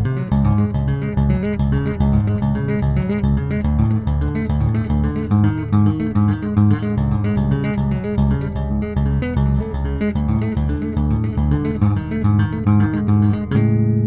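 Electric bass played solo: a fast run of short plucked notes, then near the end several notes left to ring out together.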